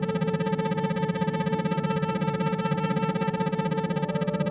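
Synthesized drone of steady electronic tones over a low hum, all pulsing on and off at a fast, even rate: an isochronic-tone meditation track.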